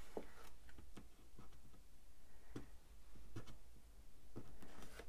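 Light, scattered ticks and paper rustles of planner stickers being handled and pressed down onto a paper page by hand, with a couple of sharper taps partway through.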